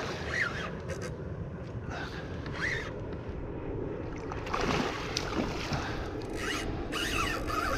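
Spinning reel's drag giving line in short spurts as a hooked snook runs, over a steady wash of wind and water around a kayak.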